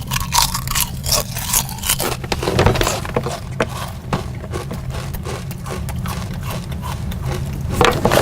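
Rapid, irregular crunching and crackling of a person loudly eating crunchy food, over a steady low hum.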